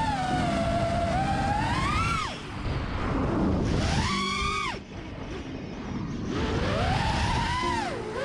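FPV quad's brushless motors (2306 size, 1700 Kv) whining with the throttle. The pitch climbs and then chops off sharply about two seconds in, bursts up again around four seconds and cuts off near five, and climbs again toward the end.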